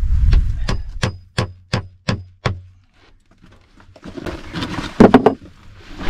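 A hammer striking a nail into a wooden wall in a quick run of about seven even blows, roughly three a second. After a short pause there is scuffling and a tight cluster of louder knocks about five seconds in.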